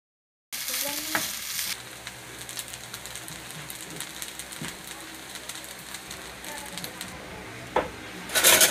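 Fried rice with longganisa sizzling in a nonstick pan while a spatula stirs and scrapes through it, with small crackles and taps throughout, louder for the first second or so. A louder clatter comes near the end.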